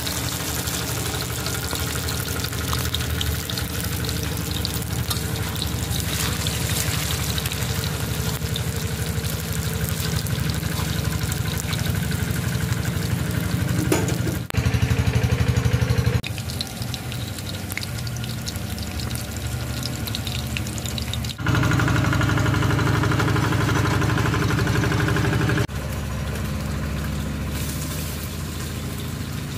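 Small spiced fish sizzling and crackling as they deep-fry in hot oil in a wok. A steady low hum runs underneath and gets abruptly louder twice, for a couple of seconds about halfway through and for about four seconds later on.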